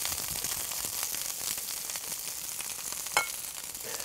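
Sliced onions frying in grapeseed oil in a hot pan, a steady sizzle with fine crackling, and a single clink about three seconds in.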